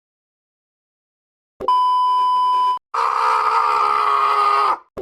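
Silence, then a steady electronic beep tone about a second long. It is followed by a harsher, noisier sound lasting almost two seconds, then the same beep again, each starting and stopping abruptly.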